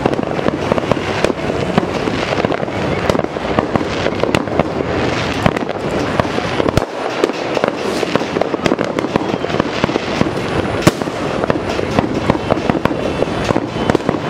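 Many fireworks going off at once: a dense, unbroken crackle of pops and bangs, with one sharper bang about three quarters of the way through.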